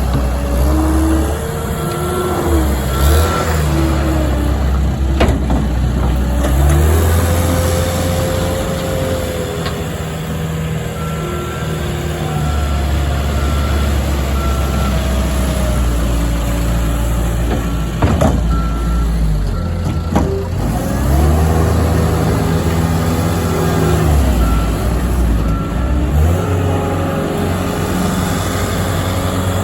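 Cat skid steer's diesel engine running under load, its pitch rising and falling again and again as the machine works back and forth, with a backup alarm beeping in several stretches. A few sharp knocks stand out, the loudest about eighteen seconds in.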